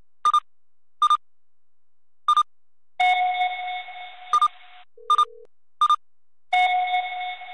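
Electronic alert tones from a live seismograph monitor: a run of short, high double beeps, one brief lower tone, and two longer chimes that fade out. They are the monitor's sound signals, set off as stations pick up the arriving earthquake waves.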